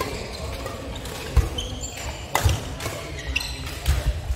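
Badminton rally: several sharp pops of rackets striking the shuttlecock, roughly once a second, with thuds of footfalls and short squeaks of shoes on a wooden court floor.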